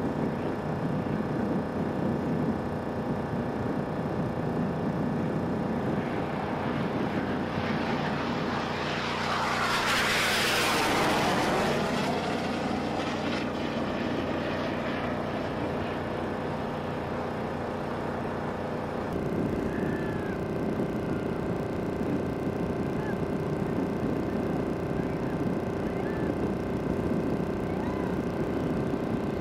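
Jet noise of the X-47B's turbofan swelling as it passes low over the carrier deck, loudest about ten seconds in and then fading away, over a steady droning hum. The background hum changes abruptly about two-thirds of the way through.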